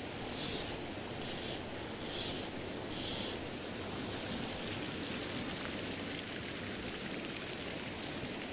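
Fly reel's click-and-pawl ratchet buzzing in five short bursts over the first few seconds. Under it and afterwards runs the steady rush of the mountain stream.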